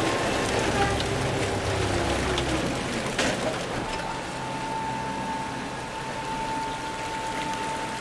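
Water splashing and pouring over salmon in a hatchery's metal sorting bin, against running machinery. A low hum drops away before the middle, and a steady high whine starts about halfway.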